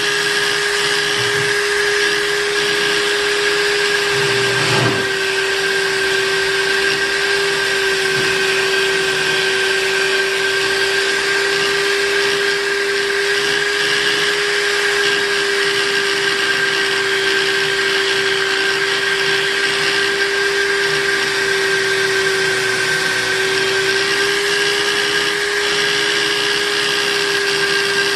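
Electric buffing machine running steadily, with a constant motor whine over the hiss of the spinning buffing wheel as a spoon knife is buffed on it.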